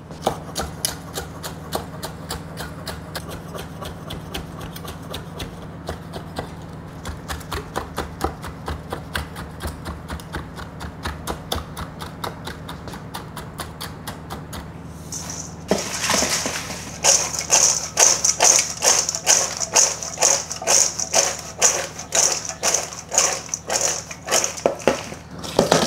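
Large knife chopping cooked bacon on a wooden cutting board in quick, even strokes. About fifteen seconds in this gives way to a louder, rhythmic rattling rustle of popcorn being tossed in a stainless steel mixing bowl.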